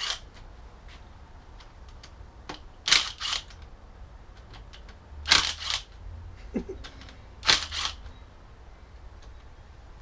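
Sharp clacks of hard objects being knocked or set down, mostly in close pairs about every two seconds, with faint ticks in between, during work on a rotary engine being taken apart.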